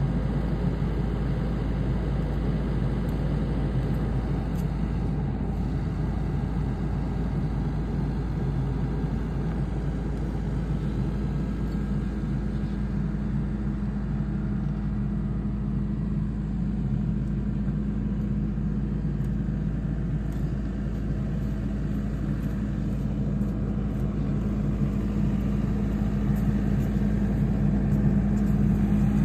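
Kubota compact track loader's diesel engine idling steadily. One note in its hum grows stronger from about halfway through.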